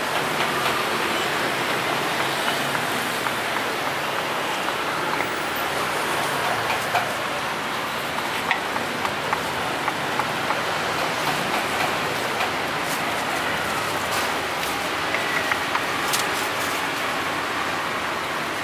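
A knife knocking and chopping on a thick wooden chopping board as meat is cut, irregular sharp knocks, over a steady hiss of street traffic.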